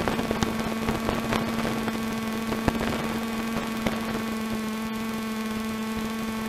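Steady droning hum in the cockpit of a Robin DR400 gliding with its engine throttled back to idle, with a few faint clicks.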